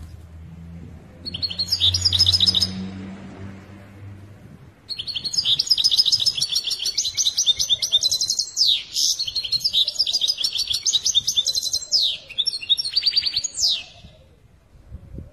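European goldfinch singing in fast twittering trills with quick falling slurs: a short phrase about a second in, then a long run of song from about five seconds until near the end. A low hum runs under the first four seconds.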